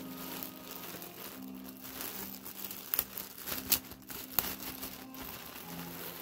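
Clear plastic poly bag crinkling as it is handled and pulled open, with a few sharp crackles near the middle.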